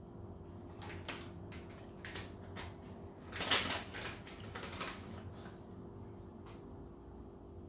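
Kitchen utensils clicking and tapping against a pot as seasoning is added to the soup, a quick run of light taps that is busiest about three and a half seconds in, over a steady low hum.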